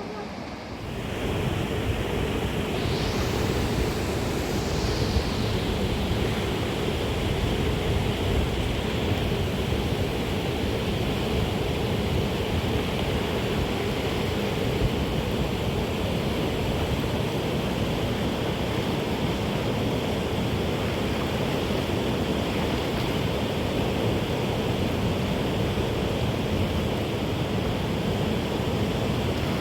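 Steady rushing of a river, starting about a second in.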